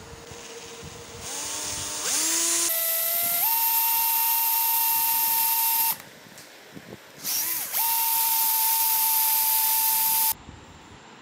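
Electric drill with a twist bit boring into a wooden block: the motor winds up with a rising whine, then runs at a steady pitch. It stops about six seconds in, starts again a second and a half later and runs for nearly three more seconds before stopping.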